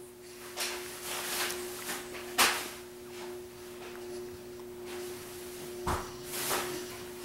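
Quiet room with a steady faint hum and a few short, soft rustling sounds, the loudest about two and a half seconds in.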